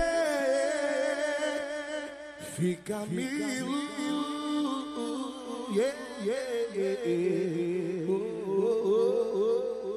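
Music: a wordless melodic vocal line over sustained tones, with no beat. The heavy bass cuts out right at the start.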